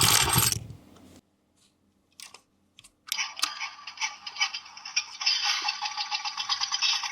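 Remote-control toy buzzing with a fast pulse. A loud knock stops it, a few small clicks follow, and the buzzing starts again about three seconds in.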